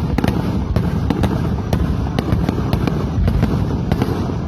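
Aerial fireworks display going off in a dense barrage: a steady low rumble of booms with sharp cracks several times a second.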